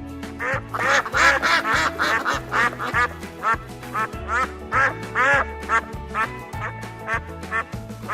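Ducks quacking in quick runs of short calls, starting about half a second in, over background music with a steady bass beat.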